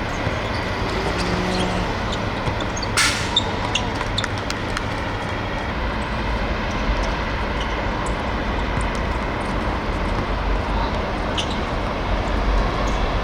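Steady low rumble and hiss around an outdoor football pitch, with scattered light taps and one sharp knock about three seconds in.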